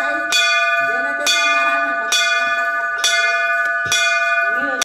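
Hanging temple bell rung by hand, struck about once a second, each stroke ringing on into the next.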